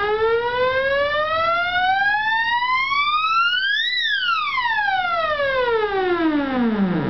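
Vacuum-tube theremin played through a guitar amplifier: a single tone with strong overtones glides smoothly up in pitch for about four seconds as the hand nears the pitch antenna, then glides back down and stops right at the end.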